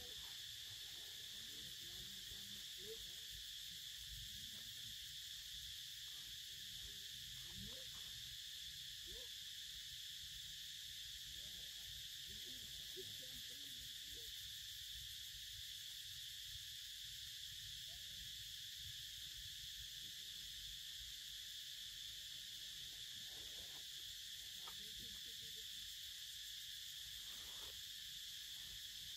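Steady high-pitched drone of insects, with a few faint low hooting calls now and then.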